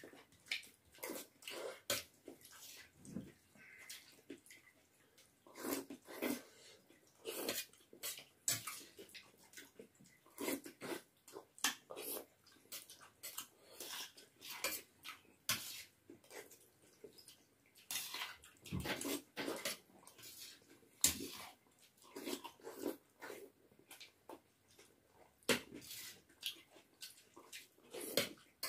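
Two people eating noodles: irregular slurps and chewing, with forks and spoons clicking and scraping on steel plates.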